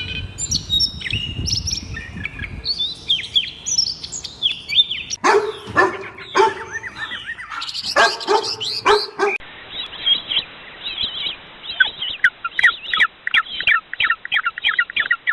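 Birds chirping in quick, varied calls, cut together from separate recordings. A lower call with several pitches sounding together comes in the middle. The last part is rapid, repeated chirping, several calls a second.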